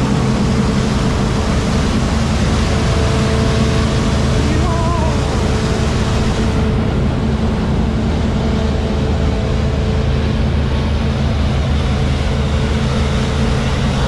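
A vehicle engine running steadily at an even pitch, under a loud, constant rush of wind and road noise.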